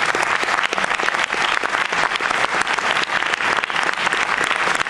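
Cinema audience applauding: dense, steady clapping from many hands.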